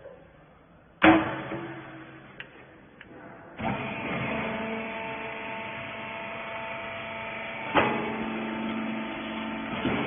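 A wiper baler's metal lid bangs shut about a second in, the loudest sound. A few seconds later the baler's electric motor and hydraulic pump start and run with a steady hum while it compresses the wipers, with a sharp clunk near the end.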